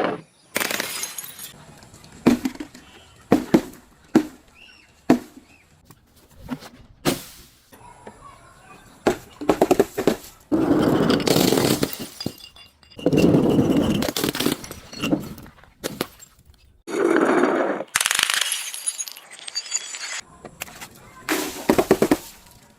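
Objects being smashed and crushed, glass among them: a run of sharp cracks and knocks broken up by several longer crunching, shattering stretches of a second or two each.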